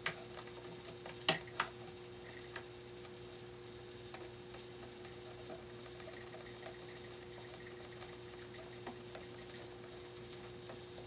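Faint clicks and scraping ticks of a screwdriver turning the brass terminal screw on a switch-outlet combination device, tightening the incoming black live wire under it, over a steady low hum. A few sharper clicks come in the first two seconds.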